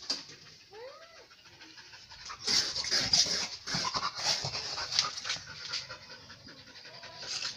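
Dog panting in repeated breathy puffs, starting about two and a half seconds in, after a brief rising cry about a second in.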